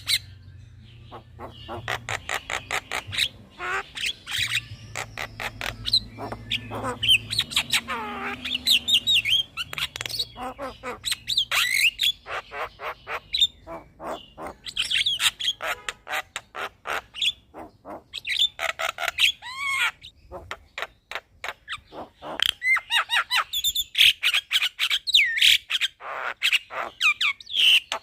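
Javan myna singing a long run of rapid clicks, harsh chatter and quick whistled glides, broken by a few brief pauses.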